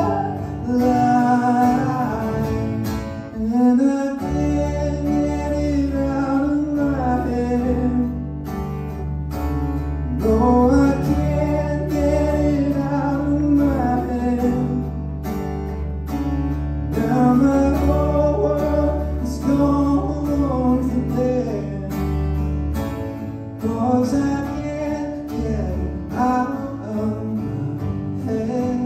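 Acoustic guitar played live under a man's singing voice carrying a melody. A deep low tone sustains beneath them from about four seconds in until a few seconds before the end.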